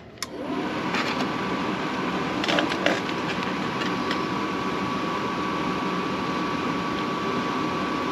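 Airstream trailer's propane furnace blower fan starting up about half a second in, then running steadily as a rush of air with a faint steady whine, a few light clicks near three seconds in. The blower runs with the newly fitted sail switch, but the burner has not yet lit.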